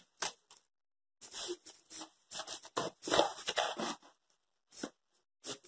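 Plastic bag rustling and crinkling in a few short bursts as it is handled, the shredded cabbage inside shifting, with a couple of light clicks.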